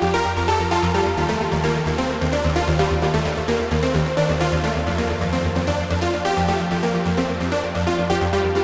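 Trance-style electronic music played on Roland SH-201 synthesizer patches: a sustained, pulsing bass line under stepping synth notes, with a steady rhythm.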